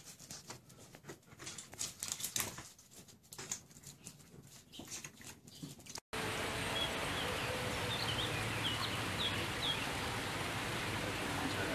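Irregular light taps and patters of animal feet and claws scampering on a wet concrete floor. About six seconds in it cuts to a steady outdoor hiss with a few short high bird chirps.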